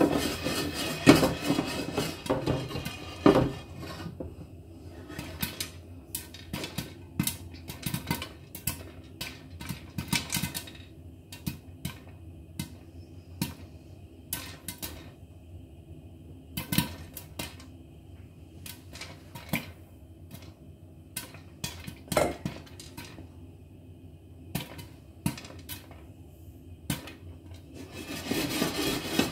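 Popcorn popping in a covered frying pan with a glass lid: scattered sharp pops, a few a second. At the start and again near the end the pan is shaken, a dense rattling clatter of kernels and popped corn against the pan and lid.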